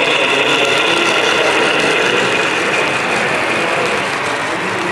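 HO-scale model freight train running on track behind an Atlas Dash 8-40C model locomotive: a steady mechanical whirring with rapid small clicks from the drive gears and wheels.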